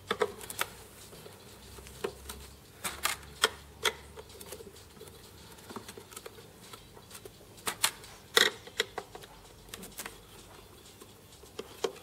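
Irregular small clicks and taps of a screwdriver and metal screws as self-tapping screws are undone from a PTZ camera's cable tidy, with the loudest click a little past eight seconds in.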